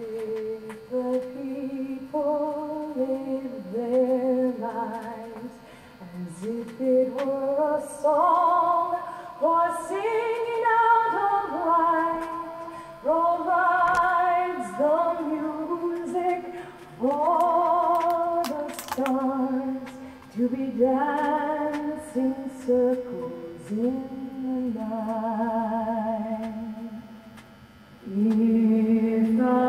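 A woman singing a melody with vibrato, played back from a vinyl LP, with scattered faint surface clicks.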